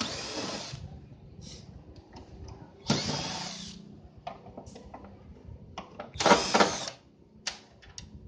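Cordless drill-driver running in three short bursts, each under a second, backing screws out of a CRT television's plastic back cover. Small clicks and knocks of handling come between the bursts.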